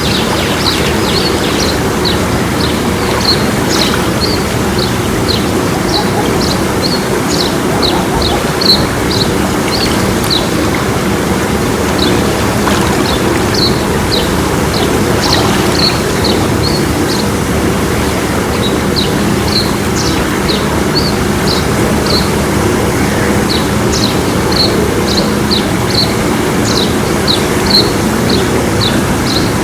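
Small birds chirping, short high calls repeated several times a second, over a steady rushing noise.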